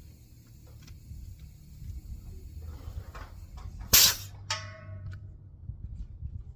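Faint clicks of tools being handled. About four seconds in comes a sharp, loud metal clank, followed by a brief metallic ring that quickly dies away.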